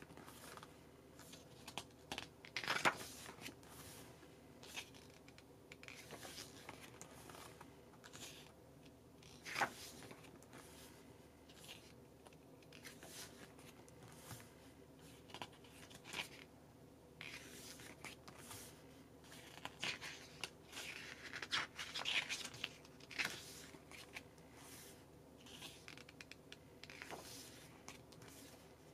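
Pages of an album photobook being turned and handled by hand: faint paper swishes and rustles at irregular intervals, the loudest about three seconds in and near ten seconds in, with a run of them a little past twenty seconds.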